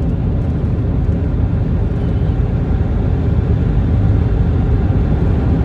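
Steady road and engine noise heard from inside the cab of a moving vehicle, a constant low rumble with no change in pitch.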